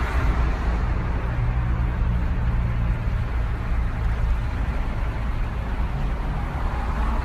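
Steady low rumble and hiss of outdoor street noise, like nearby traffic.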